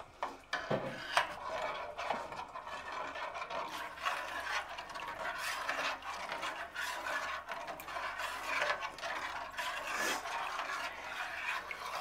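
A spoon stirring thick soup in a stainless steel stockpot: a continuous wet scraping and sloshing, with a few sharp clicks of the spoon against the pot.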